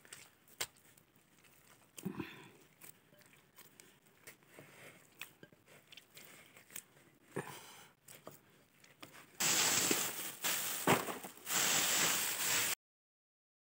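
Hands kneading and squeezing soft fresh butter in a bowl, with faint squelches and small clicks. About nine seconds in, a loud, dry crackling rustle of stiff birch bark being handled takes over for about three seconds and cuts off suddenly.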